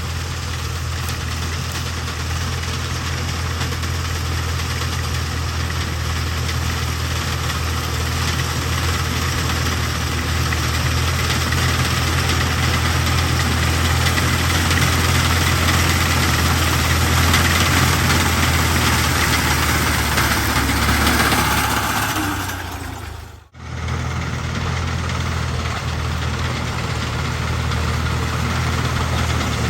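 Fiat 480 tractor's diesel engine running steadily under load while driving a wheat harvesting machine, with a hiss of machinery over the low engine hum. The sound cuts out almost completely for a moment about 23 seconds in, then resumes.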